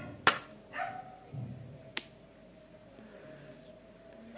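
Small novelty rubber erasers and their parts being handled and fitted together over a card package, with two sharp clicks about two seconds apart.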